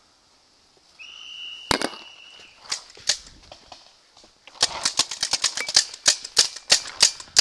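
Tippmann 98 Custom paintball marker firing: a single shot, a few scattered shots, then a rapid string of pops at about five a second. A steady high tone sounds for about a second and a half near the start.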